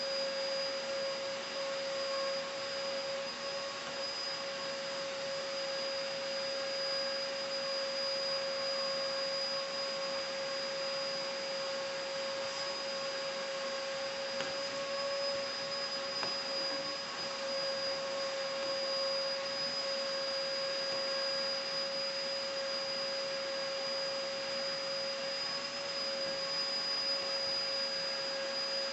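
Handheld vacuum cleaner running steadily with a constant motor whine, its crevice tool drawn along carpeted stair treads.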